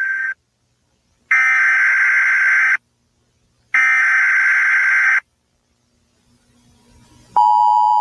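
Emergency Alert System SAME header: about one-and-a-half-second bursts of buzzing digital data tones with a second of silence between them, one ending just after the start and two more following. Near the end the steady two-tone EAS attention signal begins.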